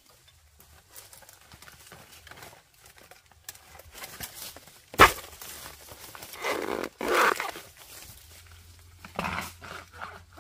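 A sharp knock about halfway through, then a dog barking a few times.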